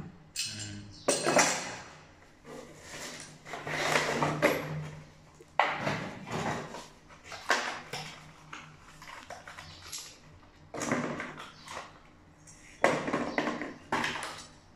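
Handling noise from a shower mixer's packaging and fittings: cardboard rustling and knocks and clinks of metal parts being moved about and set into the box, in irregular bursts.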